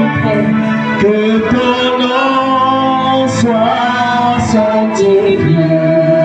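Music with a man singing in long, held notes that glide from one pitch to the next.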